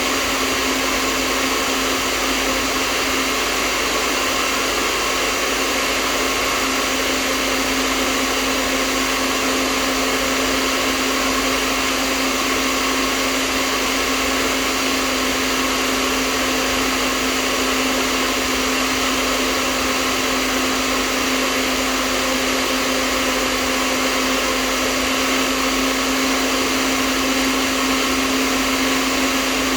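Hair dryer running steadily: a constant rush of air over an unchanging motor hum.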